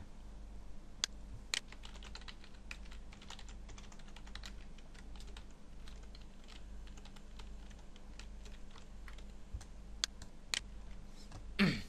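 Computer keyboard typing: irregular, quick keystrokes with a few louder clicks among them.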